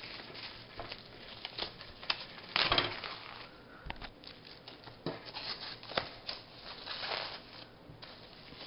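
Packaging being handled during an unboxing: irregular crinkling and rustling with a few light knocks, the loudest rustle about three seconds in.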